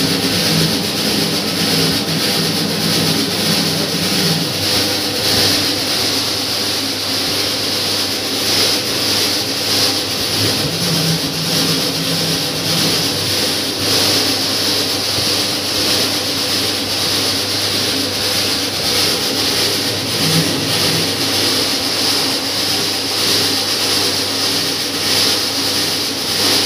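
A 10 kg electric dough kneader running steadily: the motor's constant hum and the belt-driven paddle churning flour in the stainless steel tub.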